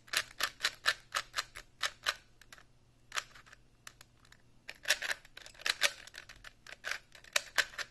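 Alpha V 3x3 speedcube being turned by hand: quick runs of plastic layer turns, clicking and scraping, with a lull of about two seconds near the middle. It sounds scratchy and very hollow, a new cube on tight tensions out of the box.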